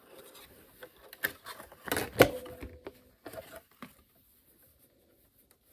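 Cotton fabric rustling as it is handled and repositioned at a sewing machine, with scattered light clicks and one louder click about two seconds in; the machine's motor is not running.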